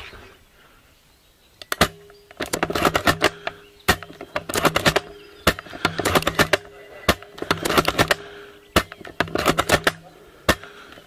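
Airsoft rifles firing rapid full-auto bursts: about seven quick runs of sharp clacks, starting about two seconds in, with a faint steady hum beneath them.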